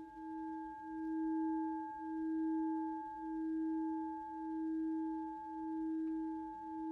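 Meditative background music: a sustained low ringing tone with fainter higher overtones, swelling and fading in a slow wobble about once a second.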